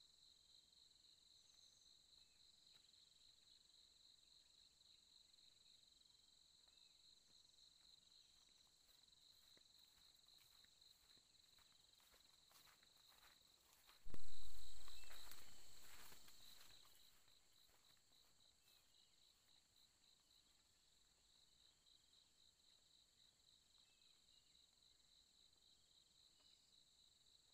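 Insects trilling steadily in a high, finely pulsing drone. About halfway through comes a sudden loud low rumble that fades away over two or three seconds.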